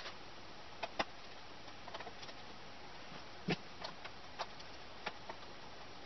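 Scattered small clicks and taps of laptop parts being handled, about seven of them, with one louder knock about halfway, over a steady hiss.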